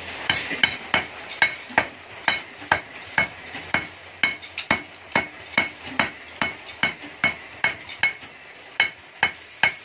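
Hand hammer pounding a perforated steel muffler baffle tube against a block: steady blows about two a second, each with a short metallic ring.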